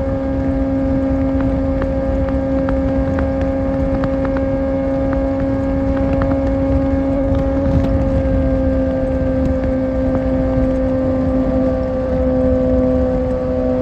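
Kawasaki Ninja ZX-6R's inline-four engine at highway cruise, holding a steady high-revving note whose pitch eases down slightly over the second half, with wind rushing past.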